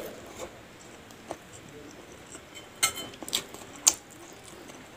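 A metal spoon clinking and scraping against a ceramic plate of rice, a few light clicks, with quiet chewing between.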